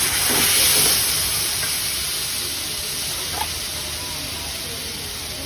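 Thin rava dosa batter sizzling on a hot dosa griddle as it is splashed on by hand to make a lacy dosa: a steady hiss, loudest in the first second, then easing slightly.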